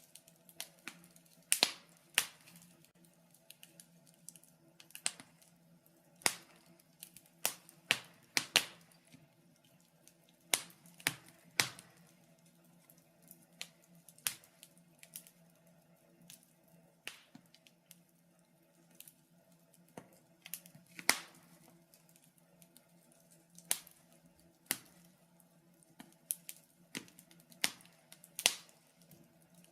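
Wood fire crackling in a fireplace: sharp irregular pops and snaps, one or two a second, over a faint steady low hum.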